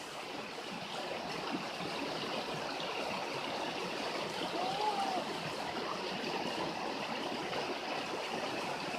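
Steady rush of flowing stream water, with a faint brief rising-and-falling tone about five seconds in.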